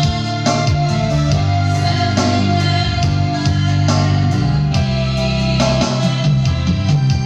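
Instrumental music led by guitar, with held low notes under a steady beat.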